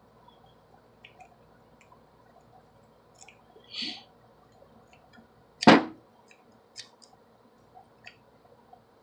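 Sparse small metallic clicks and scrapes of a worm rake and tension wrench working the pins of a Master Lock padlock, with one much louder sharp knock a little past halfway.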